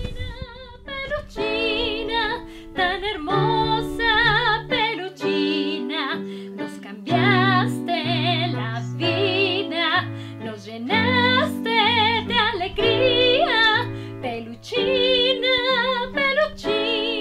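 Outro music: a song with a woman singing a wavering melody over plucked-string accompaniment and a stepping bass line.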